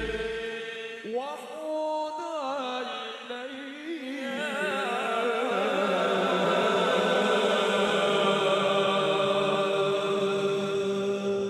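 A male voice sings a sholawat in wavering, ornamented lines. From about four seconds in, the voices hold one long note. A last low drum boom fades out at the start, and no drums sound after it.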